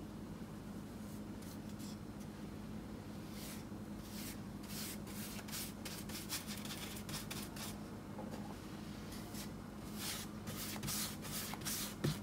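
Small paintbrush scrubbing and dabbing paint onto a hard countertop: faint repeated scratchy brush strokes, thicker from about three seconds in and again near the end, over a steady low hum. A single light knock comes just before the end.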